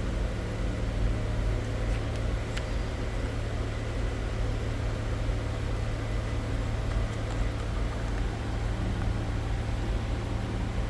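Steady low mechanical hum that holds level and pitch without a break.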